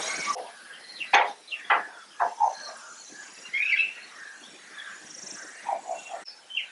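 Birds chirping now and then, with a few short scrapes of a wooden spatula stirring curry in a steel pan.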